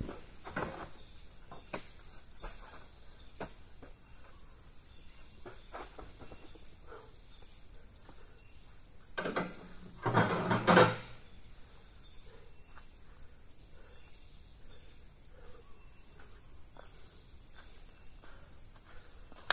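Steady high-pitched drone of insects, with scattered faint clicks and one louder burst of noise lasting about a second and a half near the middle.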